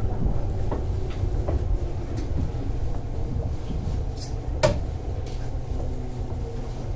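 Onboard running sound of a JR 205 series 600-subseries electric train: a steady low rumble with scattered sharp clunks of wheels over rail joints, the loudest about four and a half seconds in.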